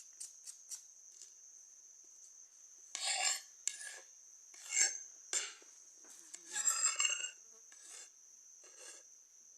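Cuttlebone being scraped into powder: faint clicks, then about seven short rasping strokes in the second half.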